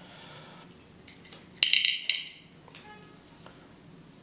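Small loose steel bearing balls, about 3.16 mm, clinking as they are handled during reassembly of a linear guide carriage. There are two sharp metallic clinks about a second and a half and two seconds in, then a faint ring.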